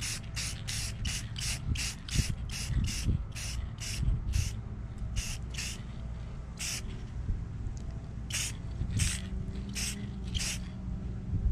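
Rust-Oleum 2X clear matte aerosol spray can hissing in short bursts as a model tree gets a clear coat to hold its flocking. The bursts come quickly, about three a second, for the first four seconds or so, then sparser, with pauses of up to two seconds between them.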